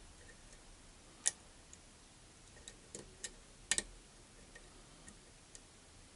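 Lock pick working inside a challenge lock: a few sharp, irregular metallic clicks, the loudest about a second in and a close pair near the middle, as parts inside the lock click under the pick.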